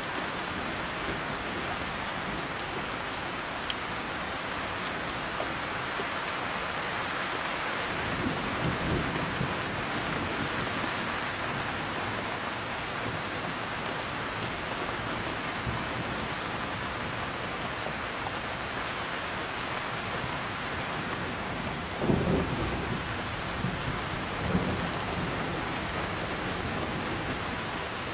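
Heavy rain falling steadily. Thunder rumbles low about eight seconds in, and a louder, sharper thunderclap with a short rumble after it comes about three-quarters of the way through.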